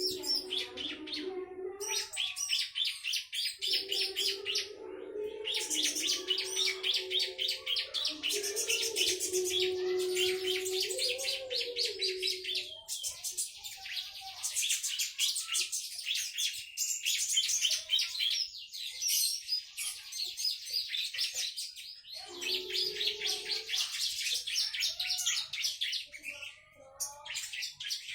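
Small garden birds chirping and twittering in fast, dense trills, with short pauses between bouts. A lower steady tone sounds beneath them for long stretches in the first half and again briefly later.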